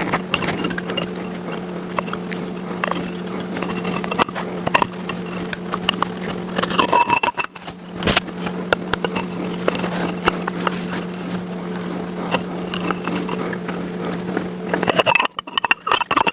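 Hand tools clicking and scraping on metal engine parts over a steady hum. The hum drops out briefly about seven seconds in and stops near the end.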